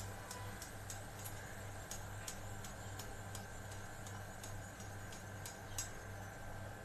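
Hot frying oil in a kadhai crackling, with irregular sharp ticks and pops, a few a second, over a steady low hum.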